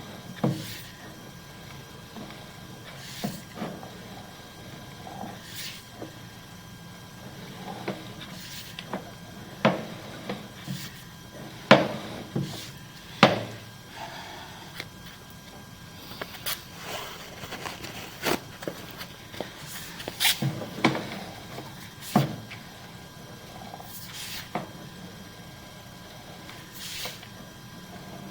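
Irregular knocks and clicks, a few of them sharp, over a faint steady hum, with the loudest pair about halfway through.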